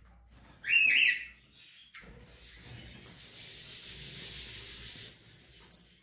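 Short, sharp chirps from red-rumped parrots, each a quick call falling in pitch, heard four times from about two seconds in. A single louder call comes at about one second, and a steady rubbing hiss fills the middle.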